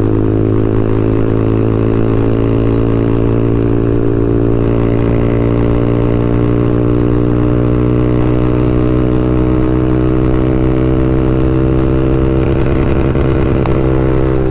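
TVS Apache RTR 200 4V single-cylinder engine through a free-flowing aftermarket full-system exhaust, held on the rev limiter. It runs loud at one steady, unchanging pitch.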